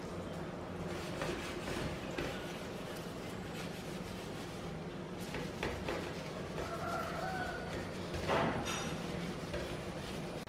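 A stainless steel wire dish rack being wiped and handled, giving a few light knocks and clinks, the sharpest near the end, over a steady low hum.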